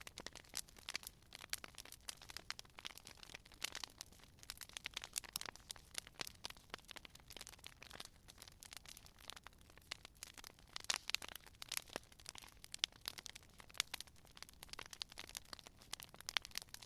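Wood fire crackling, with frequent irregular sharp pops and snaps over a faint hiss.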